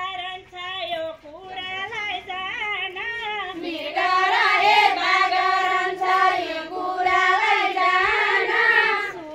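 A group of voices singing together in unison, with long held notes, getting louder about four seconds in.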